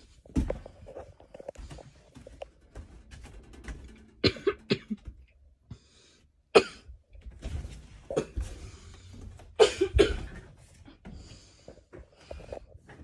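A person coughing in short bouts: three coughs about four seconds in and two more around ten seconds in, with a single sharp click between them.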